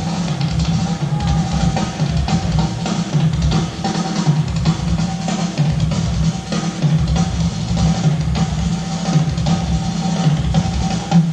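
Rock band playing live, the drum kit to the fore with busy bass drum and snare fills over a pulsing bass line.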